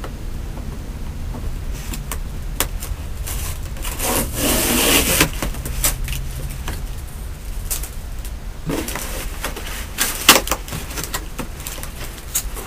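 A cardboard shipping box being torn open by hand: the tear strip and flaps ripping and rubbing, with scattered sharp cracks and one longer tearing rip about four seconds in.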